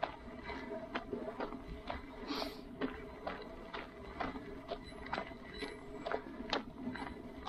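Steps striking hard ground in a steady walking rhythm, about two sharp clacks a second, over a low steady background.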